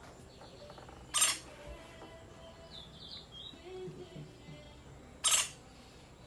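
Bird calling: two loud, harsh squawks about four seconds apart, with a brief high chirp between them.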